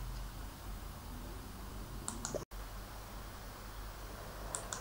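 Quiet room tone with a steady low hum and a few faint short clicks, a pair about two seconds in and another pair near the end. The sound cuts out completely for an instant about halfway through.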